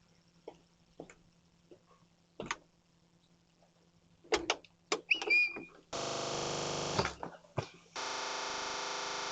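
A few sharp knocks and clunks, then a doorbell camera's electronic chime: two steady tones, each about a second long, with a short gap between them.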